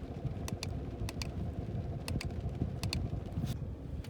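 1997 Toyota Corolla's 1.6-litre four-cylinder engine idling steadily, with a series of sharp paired clicks over it.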